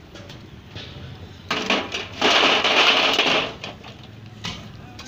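Boiled eggs tipped from a perforated steel skimmer into a steel basin of cold water: a short rush of water, then a louder splash and gush lasting about a second and a half.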